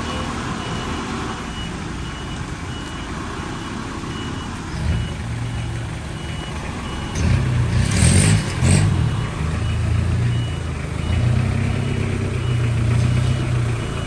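A light truck's diesel engine running as it manoeuvres, over a steady, evenly repeating electronic warning beep from its reversing alarm. The engine grows louder about halfway through, with two short loud bursts in the middle.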